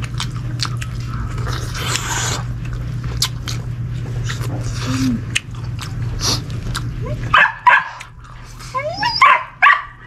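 A dog barking and whining in short yelps that bend in pitch during the last two or three seconds, a dog begging for food at the table. Before that, a steady low hum runs until it cuts off about seven seconds in.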